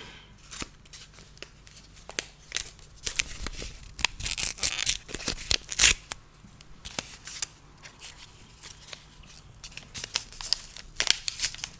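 Paper wrapping rustled, crinkled and torn open by hand, with scattered sharp clicks and taps. The loudest tearing and rustling comes about four to six seconds in, with another burst near the end.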